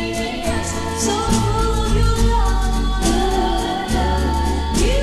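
Early-1960s pop record: a woman singing held, gliding notes over a band with a steady bass line and a regular light beat.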